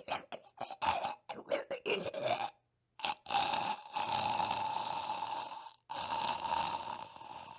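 A man's voice making short silly vocal noises. Then, about three seconds in, it makes a long rough, noisy held sound at one steady pitch, broken twice by short pauses and fading near the end.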